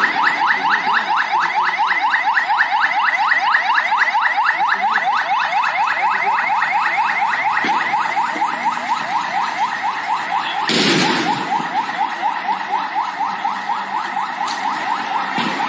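An electronic siren wailing in rapid rising sweeps, about six a second. A sharp bang cuts through it about eleven seconds in.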